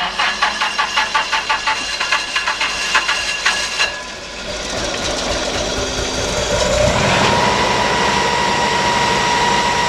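Engine of a Super Vac SVU 50 ventilation fan being started: the starter cranks it in a rapid, even chug for about four seconds, then the engine catches and runs up, settling about seven seconds in into a steady run with a steady high whine over it.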